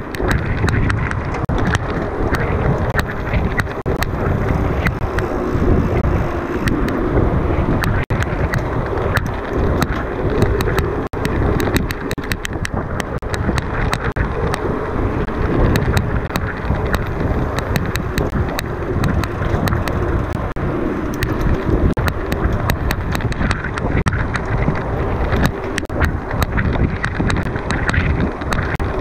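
Mountain bike ridden over rough ground: steady tyre noise with constant rattling clicks from the bike over bumps, and wind on the microphone.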